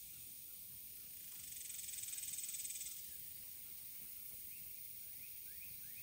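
Outdoor insect ambience: a steady high hiss, with a louder, rapidly pulsing insect buzz that swells for about a second and a half near the middle. A run of short rising bird chirps starts near the end.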